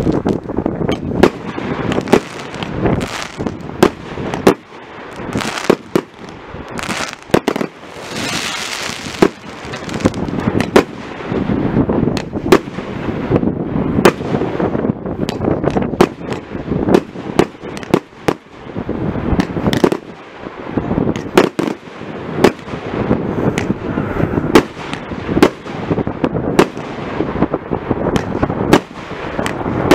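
Fireworks display: aerial shells bursting in a rapid, irregular series of sharp bangs, often one or two a second, with crackling in between. There is a spell of loud hissing about eight seconds in.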